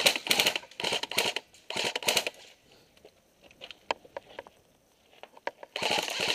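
Airsoft guns firing on full auto: three short bursts in the first two seconds or so, a few scattered single shots, then a longer burst starting near the end.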